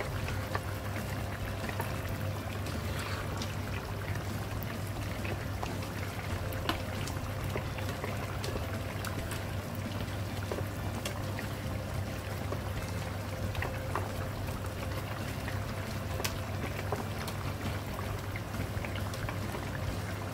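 Paella rice simmering in stock in a wide pan: steady bubbling with many small pops and ticks, over a steady low hum.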